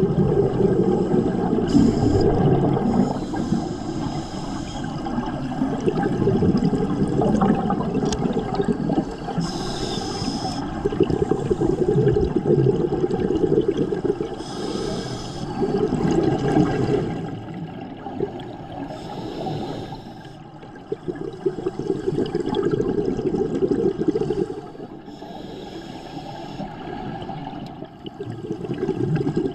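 Scuba diver breathing through a regulator underwater: a short hiss of inhalation every few seconds, alternating with the bubbling rumble of exhaled air.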